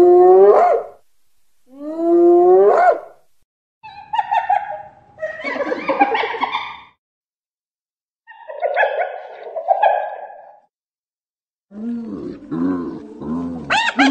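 Hyena calls: two rising whoops about two seconds apart, then several harsher, rougher calls, and near the end a fast run of short repeated calls.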